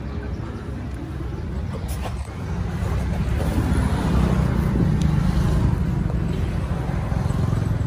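A vehicle engine running with a steady low rumble, growing louder about two seconds in.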